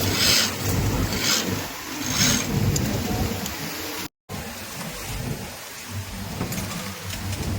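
Garment factory floor din: industrial sewing machines running together as a steady noisy clatter and hum, with a few short hisses in the first couple of seconds. The sound cuts out completely for a moment about four seconds in.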